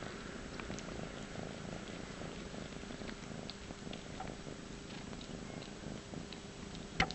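Domestic cat purring steadily while being stroked, with a sharp click near the end.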